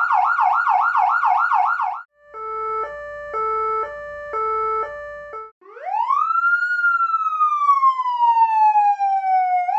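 Wolo Commissioner Model 4200 200-watt electronic siren cycling through its tones. First a fast yelp of rapid repeating sweeps, then a quieter hi-lo of two pitches alternating about every half second, then, from about six seconds in, a wail that rises, slowly falls, and starts to rise again at the end.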